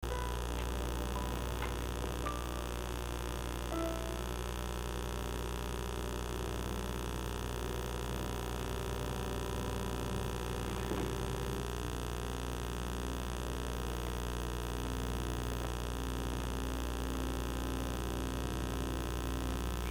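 Steady electrical mains hum with background hiss, the noise of poor-quality audio dubbed from VHS through old capture hardware.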